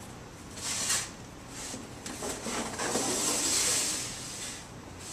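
A large sheet of chart paper being flipped over on an easel pad: a short rustle about a second in, then a longer rustle and swish of paper lasting about two seconds.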